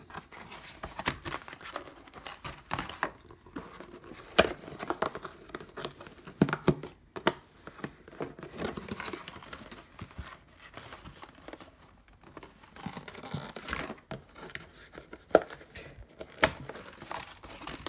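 Cardboard packaging being handled: irregular rustling and crinkling with scattered sharp clicks as the box's tabs and fastenings are bent and pushed through their slots.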